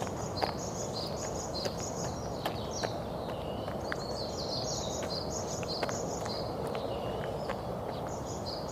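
Birds chirping: quick runs of short high notes that alternate between two pitches, over a steady noisy background, with scattered light clicks.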